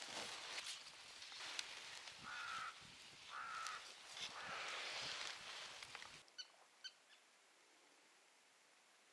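A crow cawing twice, about a second apart, over a faint noisy background. About six seconds in the background drops away abruptly, leaving faint quiet with a few tiny chirps of small birds.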